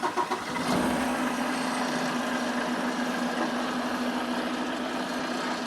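Semi truck's diesel engine idling steadily, with a few brief knocks right at the start.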